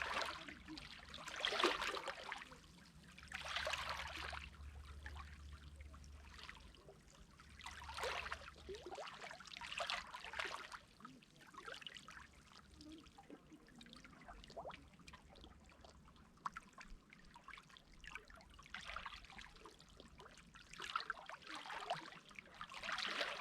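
Small sea waves lapping and washing at the water's edge, coming in irregular surges every two to three seconds, each swelling and falling away within about a second.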